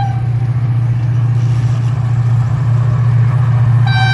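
GMU-30 diesel locomotive approaching under power, a steady low engine rumble. Its horn sounds again near the end, one held chord-like tone.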